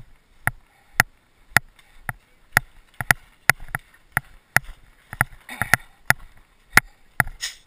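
Footsteps crunching in snow at a walking pace, about two steps a second.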